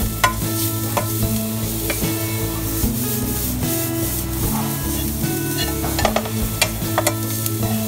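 Chopped garlic, ginger and onion sizzling in hot oil in a frying pan, with a spatula scraping and clicking against the pan as it is stirred. Background music plays along.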